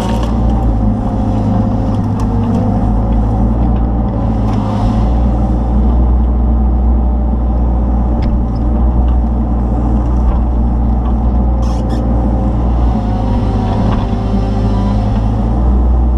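Kubota KX161-3 mini excavator's diesel engine running steadily under hydraulic load while it drives a wood splitter attachment through an oak round. Its pitch dips and recovers a few times as the load changes, and there are a few brief sharp clicks about twelve seconds in.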